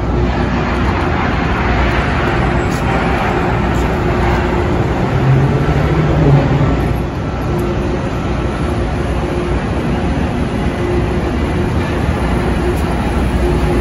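City street traffic: a steady wash of engines and tyres, with a heavier vehicle running low and passing close about five to six seconds in.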